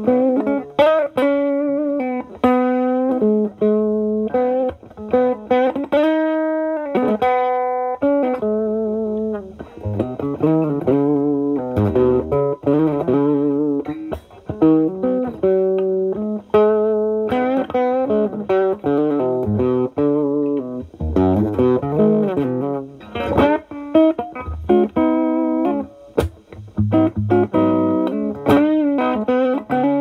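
Gibson SG electric guitar with humbuckers, played through an Ibanez TS9DX Turbo Tube Screamer overdrive pedal in HOT mode into the clean channel of a Marshall Valvestate amp. It plays an improvised lead of single notes and short chords, with vibrato on held notes and brief pauses between phrases.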